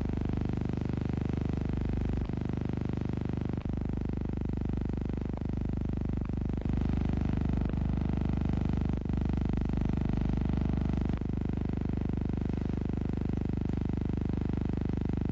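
Steady low hum with faint hiss, unchanged throughout, broken by a handful of brief clicks; no engine or crowd sound stands out.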